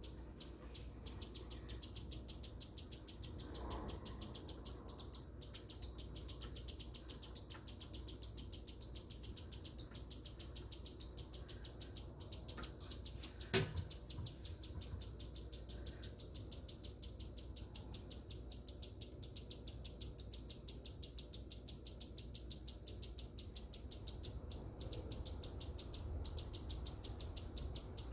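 Hummingbird chipping: short, high chip notes repeated evenly at about five a second, almost without pause. About halfway through a single knock is louder than the calls.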